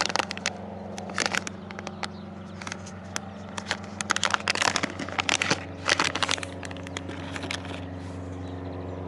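Small plastic items being handled, likely a USB multimeter and its packaging: irregular clicks, taps and crinkling rustles that thin out about seven seconds in, over a steady low hum.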